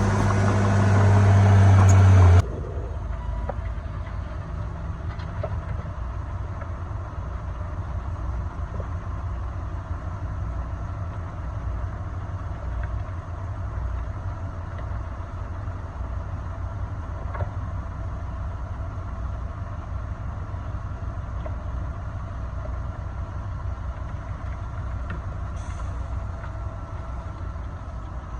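Heavy diesel engine of an earthmoving machine working hard and getting louder, then dropping suddenly about two and a half seconds in to a steady, lower idling rumble.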